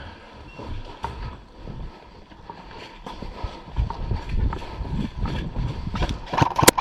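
Footsteps of a player walking, then moving faster, on a hard floor, with kit rattling and irregular thuds that grow heavier about halfway through. A few sharp, loud cracks come just before the end.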